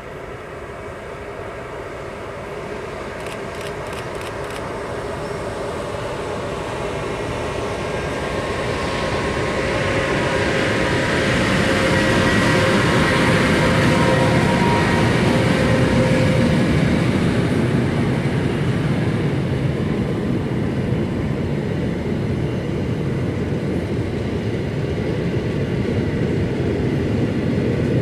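Electric train approaching and passing: its rumble grows over about twelve seconds, with a steady whine from the locomotive near the loudest point, then a steady rolling rumble of the cars going by.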